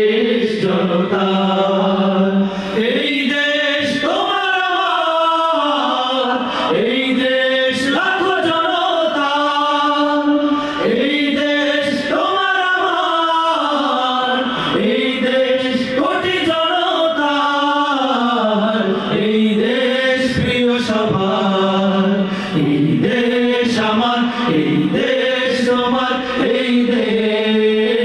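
Male vocal group singing an Islamic song (gojol) a cappella into microphones, a melody gliding over one low held note. Sharp beats recur every second or two under the voices.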